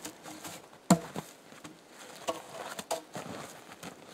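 Boots crunching in packed snow while small logs are hooked and handled with a pulp hook, with a sharp knock about a second in and a few lighter knocks later.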